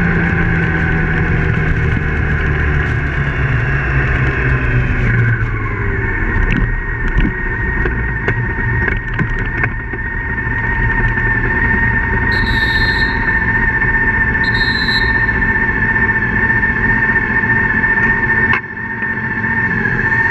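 BMW K1600GT police motorcycle riding through town, its engine running under wind noise; the engine note falls in the first few seconds as it slows, then a steady high whine holds. Two short high beeps come about two seconds apart around the middle.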